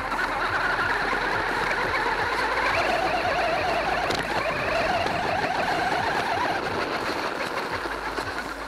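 Radio-controlled truck's motor and drivetrain whining as it drives, the pitch rising and falling with the throttle, over a constant crackle of small clicks from the tyres on gravel.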